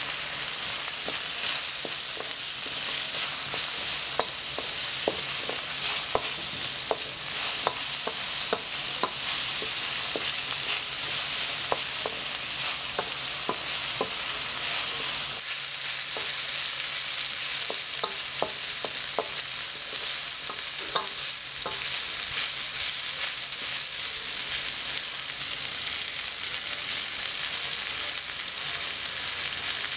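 Diced carrots and sweet corn sizzling steadily as they stir-fry in a wok. A spatula repeatedly clicks against the pan while stirring, mostly through the first two-thirds.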